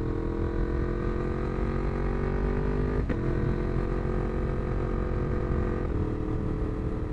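A 2018 Yamaha MT-10's crossplane inline-four engine runs loud through a Dominator de-cat link pipe, with the catalytic converter removed, as the bike rides under steady throttle. The engine note climbs slowly, breaks briefly about three seconds in, then carries on, with a smaller change in the note near the end.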